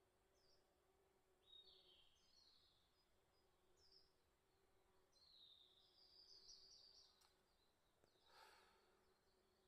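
Near silence with faint, repeated bird chirps and short twittering phrases, and a brief rustle about eight and a half seconds in.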